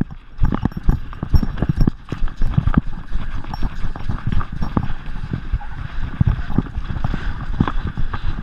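A Gordon Setter galloping on wet sand, heard from a camera on its collar: its paws land in a quick, uneven run of thuds, several a second.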